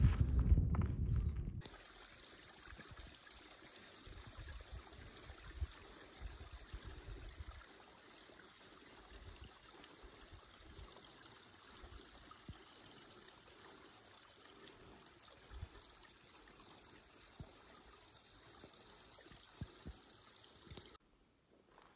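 A loud low rumble on the microphone for about the first second and a half, then it cuts to a faint, steady rush of running water with a few soft knocks.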